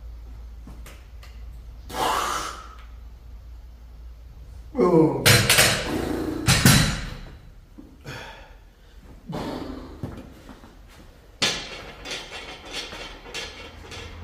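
A pair of dumbbells set down on a rubber gym floor at the end of a set of dumbbell triceps extensions, with loud metal clanks and knocks about five to seven seconds in. Short noisy breaths come before and after.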